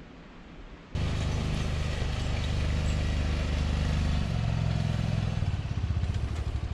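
Side-by-side UTV engine running, starting abruptly about a second in. It runs steadily, then its note changes about four seconds in and turns into an uneven, pulsing run near the end.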